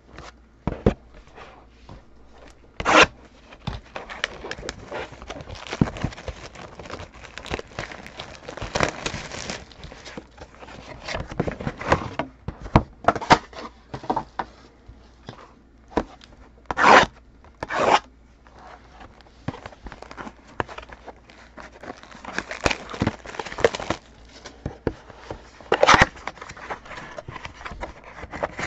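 Trading card packs and their box being handled and opened: tearing and crinkling of wrappers and cards sliding and rubbing, with scattered clicks and a few louder sharp rips or knocks, about three seconds in, twice around seventeen seconds and near the end.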